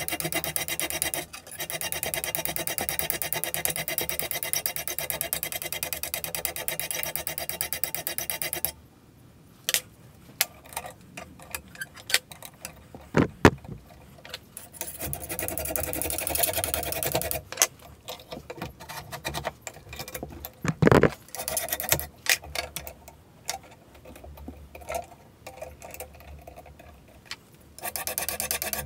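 Hand abrasive work on a steel tomahawk head clamped in a vise: fast, even scraping strokes for about the first eight seconds. Scattered knocks and clunks follow, the loudest about two-thirds of the way through, as the axe is handled out of the vise and clamped back in. The scraping starts again near the end.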